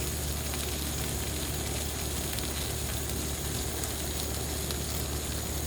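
Ninja Woodfire outdoor grill running steadily, a low hum with a hiss over it.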